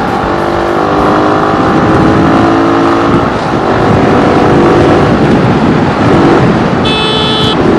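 Suzuki Raider R150 motorcycle's single-cylinder engine running under way, its pitch climbing, dipping briefly about three seconds in, then climbing again, over a strong rush of wind on the microphone. A brief high-pitched tone sounds near the end.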